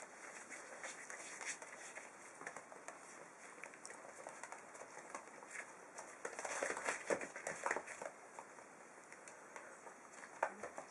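Five-week-old puppies scrabbling and tussling on newspaper and a hard floor: small paws pattering and paper crinkling, growing louder for a couple of seconds a little past halfway as two of them wrestle.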